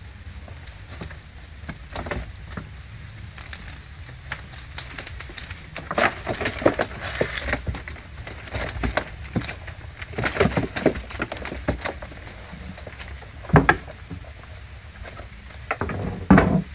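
Netting of a lú collapsible net trap rustling and clattering as it is shaken out over a foam box, with the catch of shrimp and small fish dropping in. The handling comes in two busy stretches in the middle, with two sharp knocks near the end and a steady high hiss underneath.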